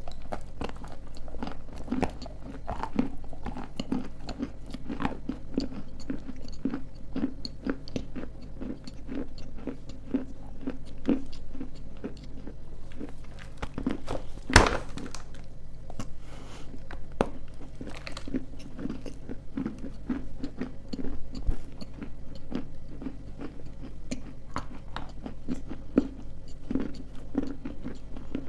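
Pieces of dry edible clay being bitten and chewed: a continuous run of sharp crunches and crackles, with one louder crack about halfway through.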